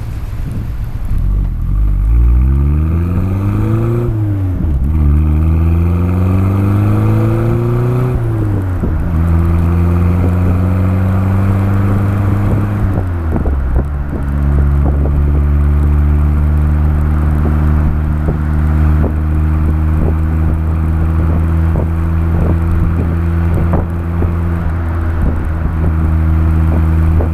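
Honda City Turbo I's turbocharged 1.2-litre four-cylinder exhaust, heard from the back of the car, accelerating through two gears: the engine note rises, drops sharply at each shift, then holds a steady pitch at cruise after a final drop about halfway through.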